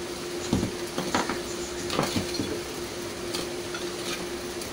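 Metal hand tools knocking and clinking against each other and the table as they are handled, about half a dozen separate knocks, over a steady low hum.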